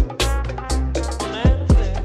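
Background music with a steady beat: a bass-heavy Afrobeat-style groove with drums and pitched instruments.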